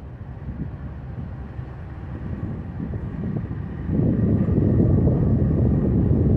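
Norfolk Southern diesel locomotives approaching at slow yard speed: a low rumble that builds gradually, then grows suddenly louder about four seconds in as the lead unit draws near, with wind buffeting the microphone.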